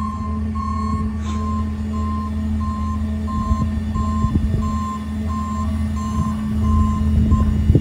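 A truck's backup-style warning beeper sounding about twice a second over the steady drone of garbage truck engines and hydraulics, while the mini garbage truck's tipping body is raised to dump into the rear loader. The beeping stops near the end, and there are a couple of knocks.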